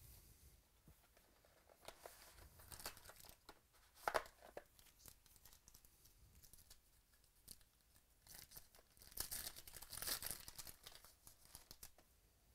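A foil trading-card pack wrapper being torn open and crinkled by hand, in scattered crackles and rustles, loudest about four seconds in and again for a couple of seconds from about nine seconds in.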